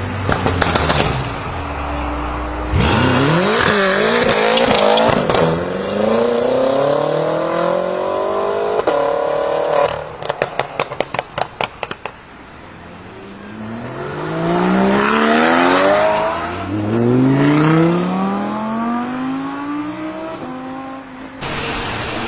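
BMW M5 F10's twin-turbo V8 on catless downpipes accelerating hard, its pitch climbing in long pulls through the gears. About ten seconds in comes a rapid string of exhaust pops and crackles on lift-off, and then two more rising pulls with an upshift between them.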